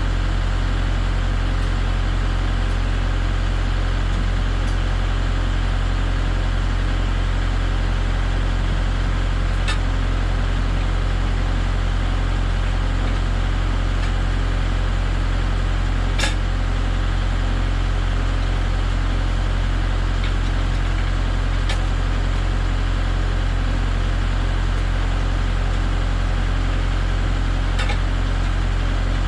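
Engine running steadily at idle, unchanged throughout, with a few faint ticks.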